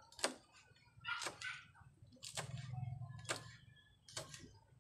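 Kitchen knife chopping green chili peppers on a wooden cutting board: about five sharp knocks, roughly one a second.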